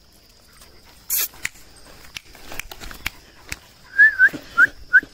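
A person whistling to call a Rottweiler puppy: three short, wavering whistles starting about four seconds in. Before them come scattered light clicks and a short hiss about a second in.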